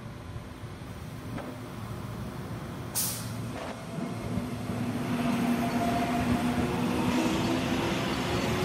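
Commuter electric train running past close by: rail rumble, with a short sharp hiss about three seconds in. From about four seconds in, a steady motor whine comes in, grows louder and rises slightly in pitch.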